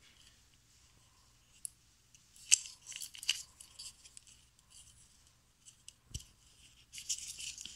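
Small plastic clicks and scrapes from a Ford Expedition power door lock switch being handled and closed up during reassembly.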